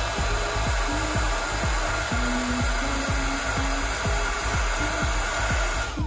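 Embossing heat gun blowing a steady stream of hot air, melting white embossing powder on a stamped card; it switches off at the very end.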